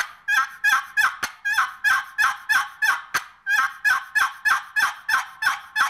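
Wooden box call played as a wild turkey hen: a fast run of sharp, smacked cutting notes with yelps mixed in, about four notes a second, broken by a short pause about three seconds in.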